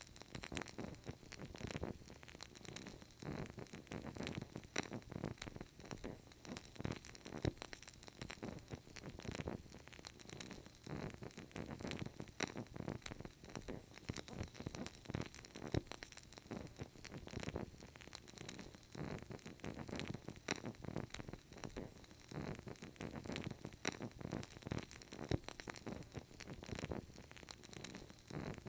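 Burning candle, its wick crackling with many small irregular pops over a soft steady hiss.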